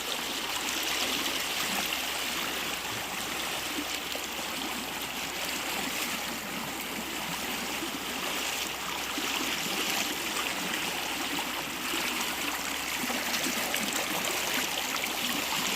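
A brook flowing: steady rushing water.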